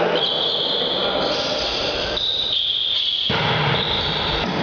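Echoing sports-hall noise during an indoor volleyball game, with steady high-pitched squeals that shift in pitch now and then.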